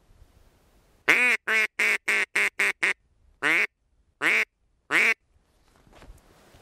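Blown duck call sounding hen-duck quacks, loud and close: one longer quack, then a quickening run of about seven short quacks, then three single quacks spaced evenly apart. It is a calling sequence meant to draw the ducks in.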